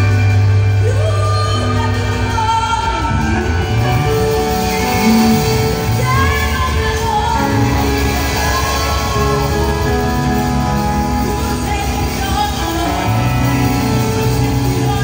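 Live church worship music: an electric bass guitar plays a bass line of held low notes under a band and group singing.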